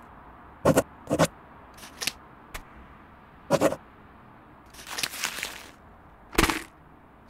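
Paper being handled on a tabletop: a series of short brushes and taps as sheets are laid down and pressed, with a longer rustling slide about five seconds in.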